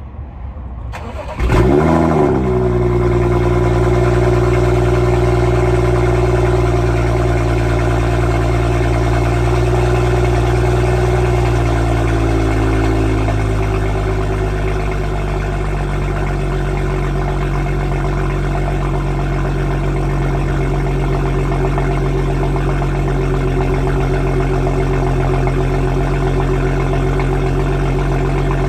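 BMW M235i's N55 turbocharged straight-six doing a factory cold start: it fires up loudly about a second and a half in and flares, then holds a high cold-start idle that eases down slightly around twelve seconds in. The exhaust is decatted, with the resonator deleted and a bored-out pipe to a standard rear box, so it is still quite loud.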